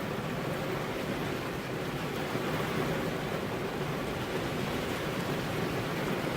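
Steady rain falling on a car's glass windows, an even, unbroken hiss and patter.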